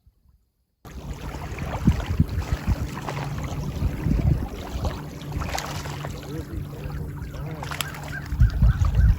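Noisy lakeside ambience that starts suddenly about a second in, with a steady low hum, several low knocks of handling or wind on the microphone, and faint honking bird calls.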